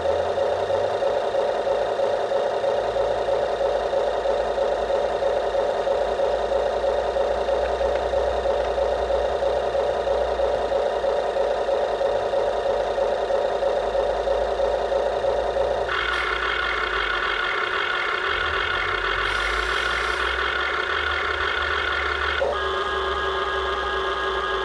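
A radio-controlled backhoe model running with a steady, buzzing, engine-like drone. The drone changes pitch abruptly about two-thirds of the way through and again near the end.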